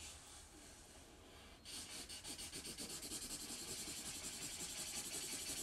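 Felt-tip pen coloring on paper in small circles: a fast, even run of scratchy strokes that starts about two seconds in, after a softer stretch of rubbing.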